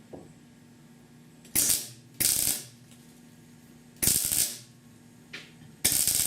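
MIG welder laying short tack welds on thin sheet steel: four brief bursts of arc, each about half a second, with a faint short one between the last two. The tacks are going in poorly, almost as if there were no heat, which the welder blames on too little heat and a holding magnet close to the weld disturbing the arc.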